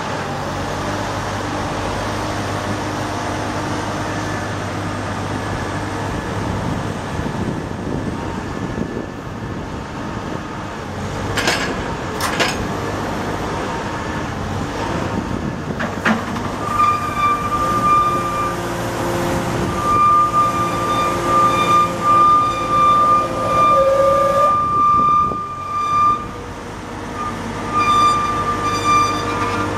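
CAT TL1055 telehandler's diesel engine running steadily while its hydraulics retract and lower the boom, with a couple of sharp clicks near the middle. From about halfway a high hydraulic whine rises over the engine and comes and goes in pulses toward the end.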